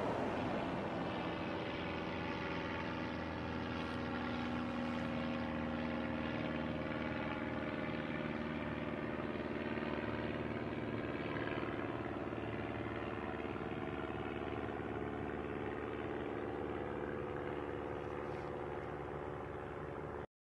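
A steady drone of several held tones that cuts off abruptly near the end.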